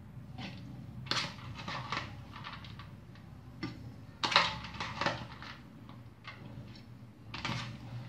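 A steel spoon scraping and knocking against a stainless steel mixer-grinder jar as soaked urad dal is scooped in, in a handful of short scrapes and clinks, the loudest a little past four seconds in. A low steady hum runs underneath.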